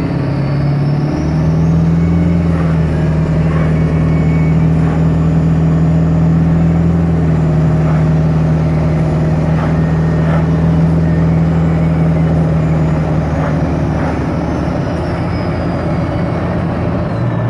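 Turbocharger on a 7.3-litre turbo diesel V8 whistling as the engine is held at raised revs. The high whine rises as the engine picks up about a second in, holds steady, then falls in pitch near the end as the revs drop back.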